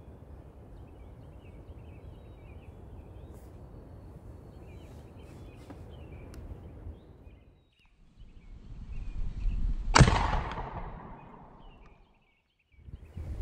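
A .54 calibre Greene twist-breech percussion carbine fired once, about ten seconds in: a single sharp shot that rings on and fades over about two seconds. Faint bird chirps sound in the background.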